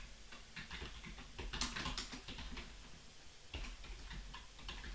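Typing on a computer keyboard: light keystrokes in irregular clusters.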